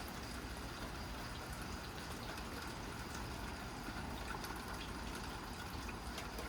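Steady rain falling, with water dripping and a few faint drip ticks.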